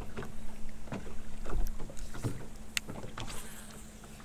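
Small waves lapping and knocking against a boat hull, with scattered light ticks and a faint steady hum underneath.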